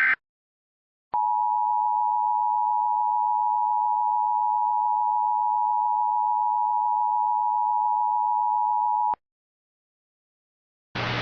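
The clipped end of an Emergency Alert System SAME header data burst, then the EAS two-tone attention signal held steady for about eight seconds before cutting off cleanly. Near the end a steady hiss with a low hum comes in ahead of the broadcast voice.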